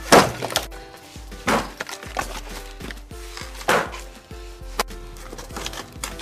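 Hatchet chopping and splitting dry firewood: three loud, sharp cracks of wood splitting, near the start, about a second and a half in and about three and a half seconds in, with lighter knocks of the blade between them.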